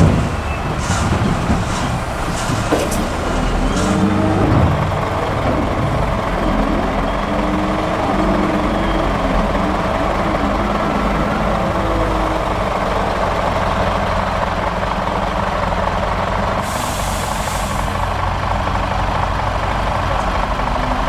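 Heavy diesel engines of a Claas Torion wheel loader and a Scania truck running steadily, with a few knocks and rattles in the first seconds as the loader's bucket tips chopped maize into the trailer. About 17 s in comes a short hiss of the truck's air brakes.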